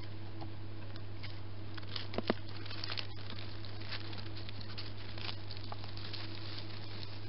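A hedgehog moving through dry leaf litter and wood chips: irregular rustling crackles and small clicks, busiest about two to three seconds in.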